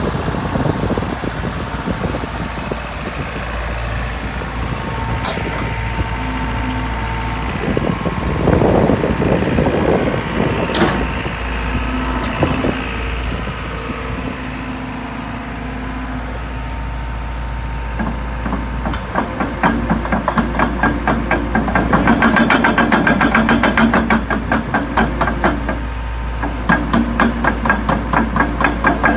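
Diesel engine of a JCB JS130LC tracked excavator running steadily, with a few sharp clicks in the first half. About two-thirds of the way through it turns louder, with a fast, even pulsing beat that briefly eases and then returns near the end.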